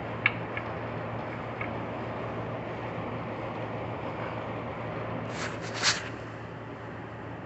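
A 6.0 engine on a stand being turned over by hand with a wrench: a few light metal clicks, then a short louder rattle of metal about five and a half seconds in, over a steady background hum. The engine binds partway round instead of turning freely.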